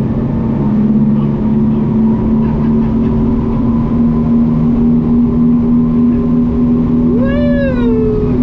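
Boat engine running under way, a steady loud drone whose pitch creeps up slightly. About seven seconds in, a person gives a short vocal whoop that rises and then falls.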